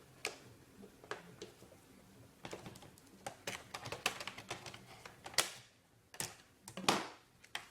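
Irregular plastic clicks and taps from a Fujitsu Lifebook laptop's casing as a part is worked loose and lifted out, with a few louder clicks among them.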